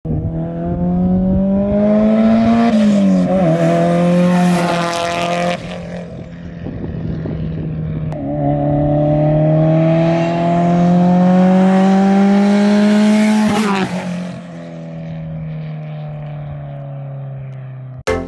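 Car engine accelerating hard, its pitch climbing steadily and falling back sharply twice, as at gear changes, with a quieter steady stretch near the end.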